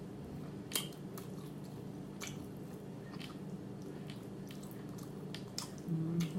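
A person chewing food close to the microphone, with wet mouth clicks and smacks about once a second.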